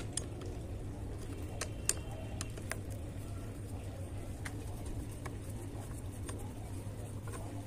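Scattered light metallic clicks and taps, the sharpest about two seconds in, as small nuts on a motorcycle's fittings are tightened back with a spanner. Under them runs a steady low hum.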